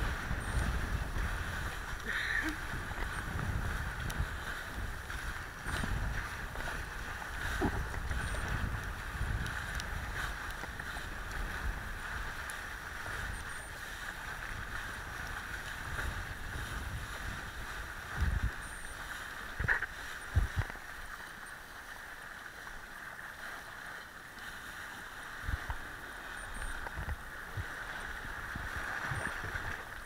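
Wind rumbling and buffeting on the camera microphone over the steady rush of a kiteboard planing across choppy sea water. A few sharp knocks stand out a little past halfway through.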